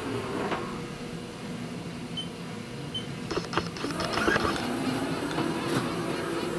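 Haas EC-300 horizontal CNC mill running inside its enclosure: a steady machine hum with several sharp clicks, growing louder about four seconds in.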